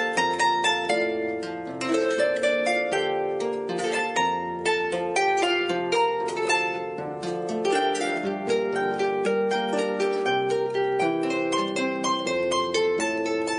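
Background music of rapidly plucked strings playing a quick run of notes.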